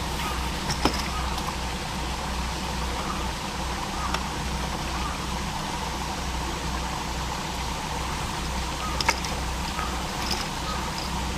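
Steady outdoor background of a low rumble and hiss, with a few faint chirps and two sharp clicks, about a second in and about nine seconds in.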